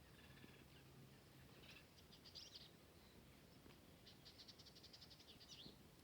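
Faint high-pitched chirping trills, two short runs of rapid chirps over a near-silent background.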